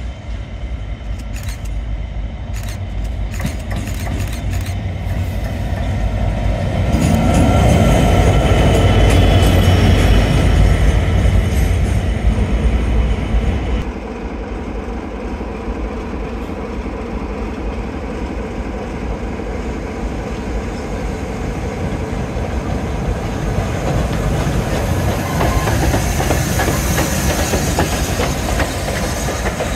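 A locomotive-hauled train approaching and passing, growing steadily louder to a peak, cut off suddenly about halfway. Then SR rebuilt West Country class steam locomotive 34028 Eddystone working its train, with a hiss of steam rising near the end.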